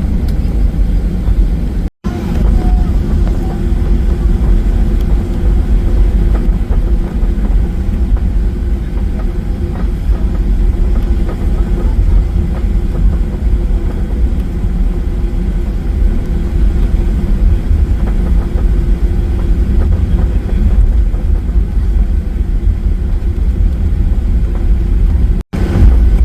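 Steady jet airliner engine and airflow noise heard from inside the passenger cabin during takeoff: a deep, loud rumble with a steady hum above it. The sound cuts out completely for an instant twice, about two seconds in and near the end.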